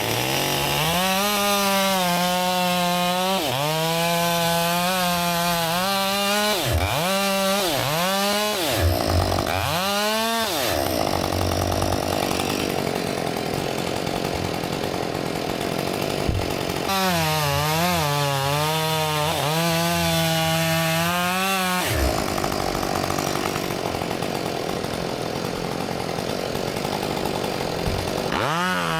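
Two-stroke chainsaw revving to full throttle and cutting through maple wood. It runs in several long bursts, with quick throttle dips and surges in between, and a stretch of steadier, lower engine noise mid-way.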